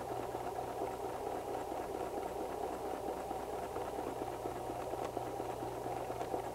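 White 1735 electric sewing machine running steadily at speed, its needle stitching rapidly in free-motion stippling.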